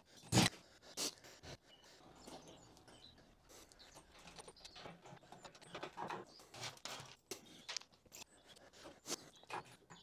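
Scattered knocks and light metal clanks from a steel engine crane being pushed and repositioned by hand on a concrete floor. The loudest knock comes about half a second in, with another about a second in.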